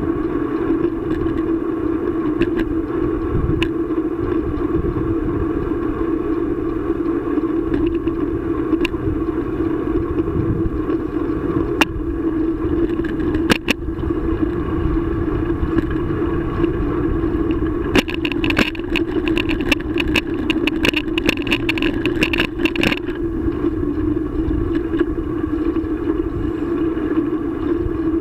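Riding noise picked up by a camera mounted on a moving bicycle: wind rumble on the microphone and tyres rolling on asphalt under a steady hum. About two-thirds of the way through, a few seconds of rapid clicking and rattling.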